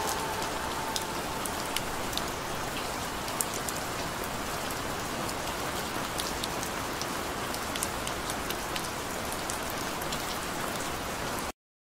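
Steady rain, an even hiss with scattered drop ticks: the recorded rain layer of the edit, left on its own as the last note of the song fades in the first second. It cuts off abruptly just before the end.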